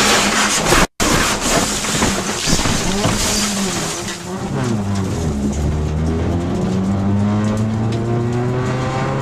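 Race car engine heard from inside the cabin. It opens with a loud rushing noise, and the sound cuts out for an instant about a second in. From about four seconds in, the engine note climbs as the car accelerates, then holds at a steady high pitch.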